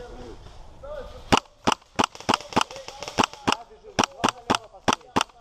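HPA-powered WE P90 airsoft rifle firing on semi-automatic: a steady string of sharp cracks, about three shots a second, starting a little over a second in.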